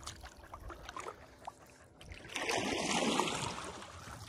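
Kayak paddling: light drips and splashes, then about two seconds in a paddle blade pulls through the water in one longer rushing stroke.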